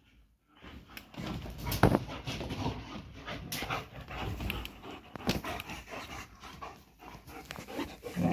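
German shepherds scuffling at close range: panting, with irregular knocks and thumps from paws and bodies, the loudest about two seconds in.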